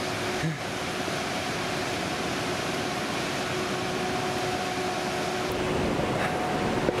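Steady rushing of a white-water river: an even hiss with a faint steady hum underneath.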